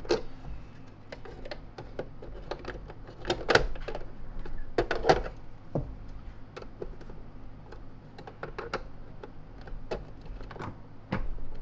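Scattered clicks and knocks of hard plastic as screws are tightened with a screwdriver on a Lindhaus HF6 canister vacuum's housing and the body is pressed and handled, with two louder bunches of clicks about three and a half and five seconds in. The looseness being felt turns out to be play in the plastic housing rather than loose screws.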